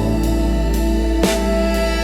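Blues-soul music in a gap between sung lines: sustained keyboard chords over a heavy bass line, with a drum hit about a second in.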